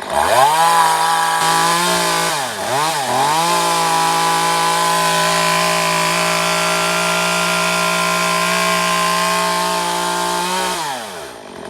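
Stihl MS 194T top-handle two-stroke chainsaw running at high revs, freshly cleaned and running again. It dips in speed twice soon after it starts, holds steady, then the revs fall away near the end.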